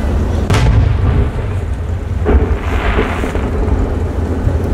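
Aerial firework shells bursting: two booms, about half a second and a little over two seconds in, the second followed by a brief hiss, over a steady low rumble.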